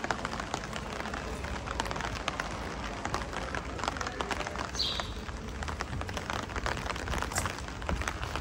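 Rain pattering in dense drops, with a steady low rumble of wind on the microphone. A brief high squeak sounds about five seconds in.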